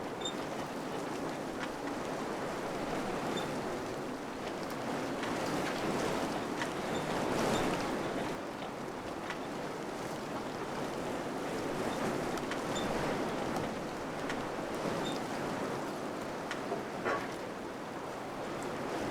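Wind blowing steadily, swelling into a stronger gust about seven seconds in. A few faint ticks sound through it, and there is a sharper tap near the end.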